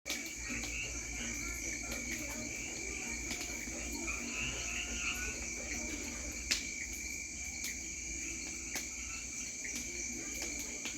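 Crickets chirring in a steady, continuous chorus of high-pitched trilling, with a few sharp clicks now and then.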